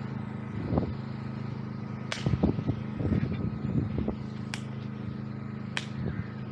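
Steady low engine hum, with a few sharp clicks about two, four and a half and six seconds in.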